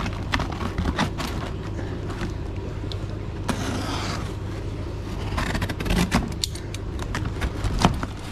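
Utility knife slicing through packing tape and cardboard on a parcel, with scraping and knocks as the box is handled. A steady low hum runs underneath.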